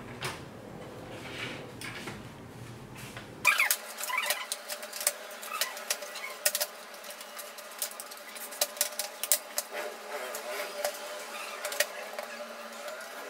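Scattered sharp plastic clicks and snaps as a laptop's palmrest cover is pressed down onto the base and its clips snap into place, starting a few seconds in after a stretch of soft handling noise.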